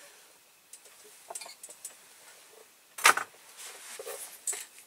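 Scattered clicks and clinks of small hand tools, a craft knife and tweezers, being picked up and handled, with one sharp knock about three seconds in.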